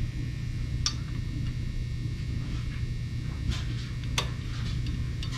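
A few sharp, light metallic clicks as a roller cam follower is fitted onto its lash adjuster and valve stem in a 5.0 Coyote cylinder head, over a steady low hum.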